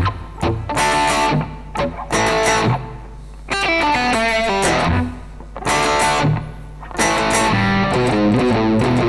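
Electric guitar, the Ibanez RC720 Premium with its humbuckers, played through an amplifier: chords and phrases with short breaks, and a quick run of single notes about four seconds in, over a steady low hum.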